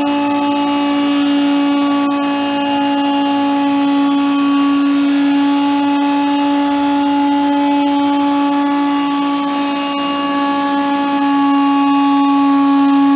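Portable in-situ machining rig running: a loud, steady machine whine with a strong low tone and several higher tones that shift slightly partway through.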